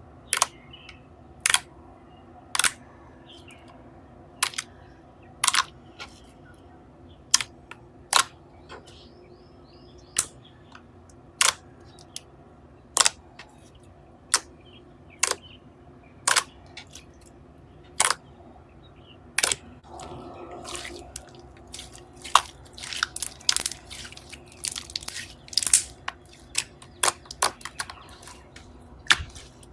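Soft wood-glue slime being pressed and played with by hand, giving short sharp wet pops about once a second, then faster, irregular popping and squishing clicks in the last third.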